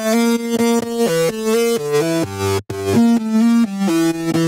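Distorted acid synth lead layer playing a quick riff of short stepped notes on its own, bright and full of upper harmonics, with a brief break a little over halfway through.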